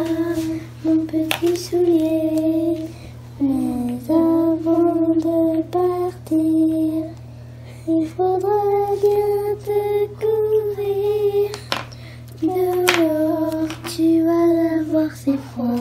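A child singing a slow tune in long held notes, phrase after phrase with short pauses between.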